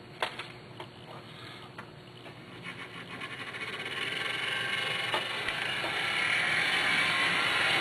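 Model train running on the layout, a whirring rush of motor and wheels on track that grows steadily louder through the second half. A few light clicks and knocks come in the first two seconds.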